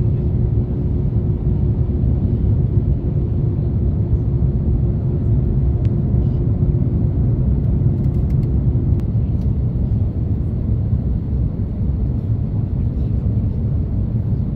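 Steady, low cabin roar of an Airbus A330-300 in flight: engines and airflow. A faint steady hum runs under it and stops about nine seconds in.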